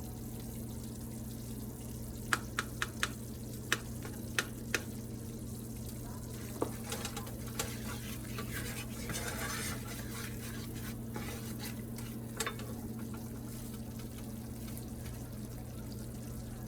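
A utensil stirring gravy in a frying pan, with a sizzle. Sharp clicks of the utensil against the pan come several times in quick succession a couple of seconds in, then singly a few more times. A steady low hum runs underneath.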